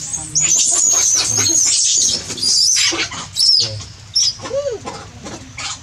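Baby macaques squealing: a run of shrill, high-pitched wavering cries for about three and a half seconds, then a few shorter squeaks.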